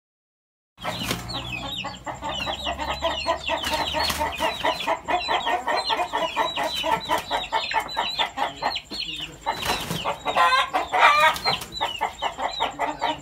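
Chickens clucking and chirping: a dense, fast run of short, high, downward-sliding calls that starts after a moment of silence, with a louder call about ten seconds in.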